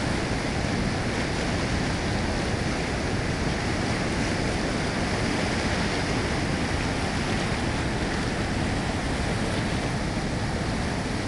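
White-water river rapids rushing steadily, a continuous, even wash of churning water.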